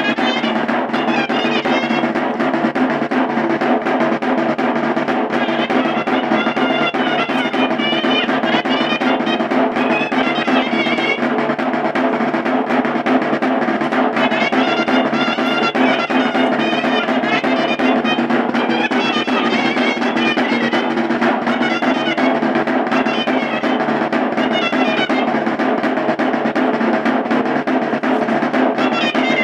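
Chirimía (double-reed shawm) playing a Tastoanes dance melody in phrases with short breaks, over a continuous caja drum roll.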